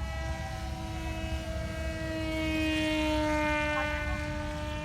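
RC model airplane's motor and propeller running with a steady whine. It grows louder and shifts in pitch as the plane passes closest about three seconds in, then fades a little.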